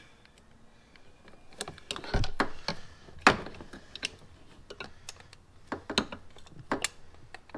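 Scattered clicks and knocks of hands and tools working on an ATV carburetor's fittings, with a dull thump about two seconds in and a sharp louder knock just after three seconds.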